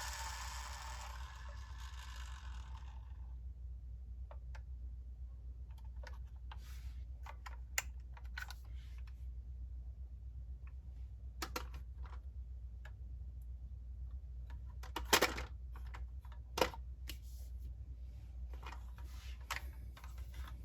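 Hands handling a 1:24 die-cast model car, making scattered small clicks and taps. The loudest two come about a second and a half apart past the middle, over a steady low hum. A hissy rustle fades out in the first few seconds.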